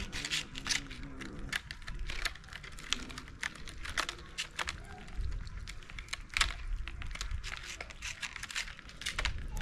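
Several cats eating wet food from plastic trays: many quick, irregular clicks and smacks of chewing and lapping.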